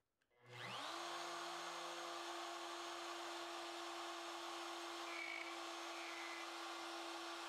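DeWalt plunge router with a spiral bit starting about half a second in, winding up quickly in pitch and then running at a steady whine while hogging out a shallow first pass of the mortise through an acrylic template.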